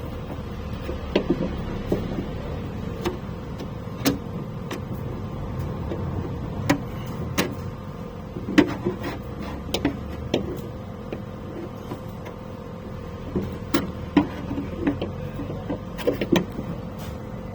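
Irregular light clicks and taps of a car door lock's small plastic and metal parts being handled, over a steady low hum.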